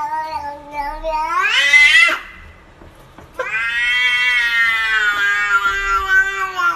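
Domestic cat yowling in two long drawn-out meows. The first climbs in pitch near its end. The second starts about three and a half seconds in, is held for about three seconds, and falls slightly as it ends.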